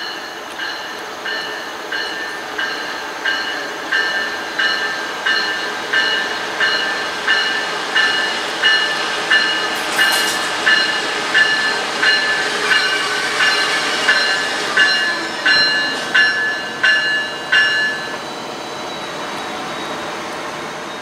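Approaching Amtrak electric train's bell ringing steadily at about one and a half strokes a second and growing louder as it nears, stopping about 18 seconds in, over the building rumble of the train on the rails.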